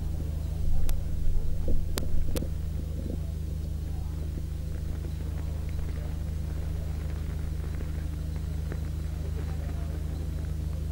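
Steady low electrical hum, with three sharp clicks in the first two and a half seconds.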